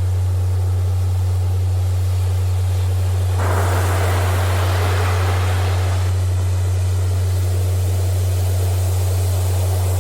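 A steady low hum tone, a Rife-frequency tone, sounding continuously over a bed of recorded surf noise. The surf swells abruptly about three and a half seconds in and falls back about two and a half seconds later.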